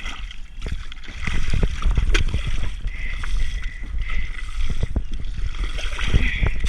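Water and mud splashing and sloshing, broken by many irregular knocks and thuds, as mud is scooped out by hand from around a stuck animal beside a kayak.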